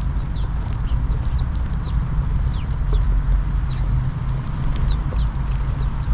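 A flock of house sparrows chirping as they feed, with short, high, falling chirps several times a second. A steady low rumble runs underneath and is the loudest sound.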